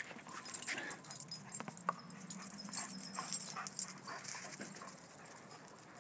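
Dogs scrambling after thrown tennis balls on a hard court: a run of light taps, patters and clicks from paws and bouncing balls, loudest about three seconds in, then dying away.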